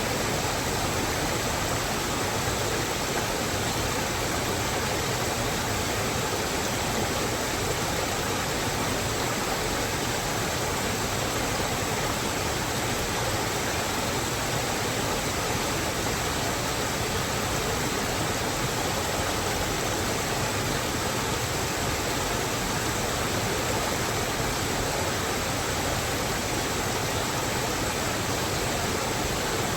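Steady, even rush of water with no breaks or distinct events.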